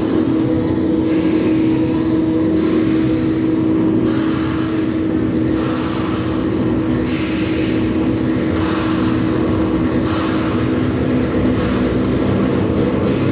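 Live harsh noise music: a dense, loud wall of distorted noise over a steady low drone, with bursts of high hiss that pulse on and off about every second and a half.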